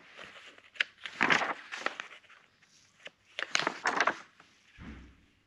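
Glossy magazine pages being turned, rustling in two spells of quick swishes, about a second in and again about three and a half seconds in, with a soft low thump near the end.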